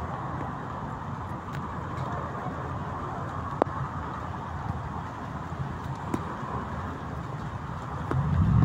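Road traffic on a rain-wet street: cars running in a slow queue under a steady hiss, with a few faint ticks. A vehicle's engine rumbles louder near the end.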